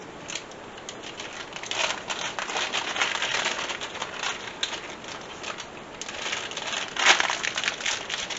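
Plastic food packaging crinkling and rustling as it is handled, loudest in two spells: from about two to four and a half seconds in, and again around seven seconds.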